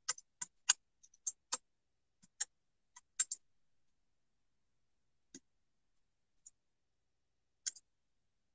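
A run of short, sharp clicks at irregular intervals, most of them in the first three and a half seconds and a few scattered after, with dead silence in between as the live stream's audio cuts out.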